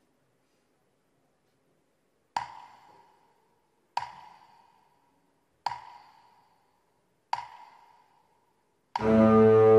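Live dance accompaniment: four sharp struck pings, evenly spaced about a second and a half apart, each ringing briefly at one pitch and dying away. Near the end a loud sustained keyboard synthesizer chord sets in.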